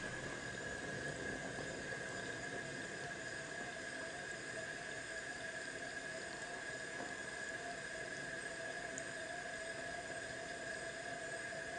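Faint steady hiss of a lit gas burner heating a pan of stew, with a thin steady whine running through it. It is the normal sound of the burner being on, not a gas leak.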